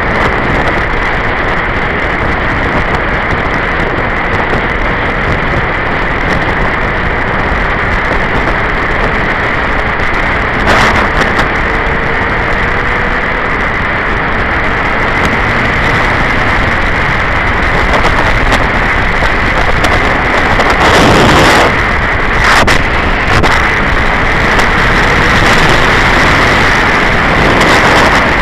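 Steady wind rush over the microphone of a Honda sportbike ridden at road speed, with the engine running underneath. A faint tone slowly rises in pitch in the first half, and there are brief louder gusts a little over a third of the way in and again about three-quarters through.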